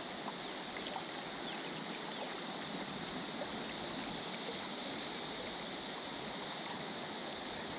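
Steady rush of river water, with a constant high-pitched insect drone over it.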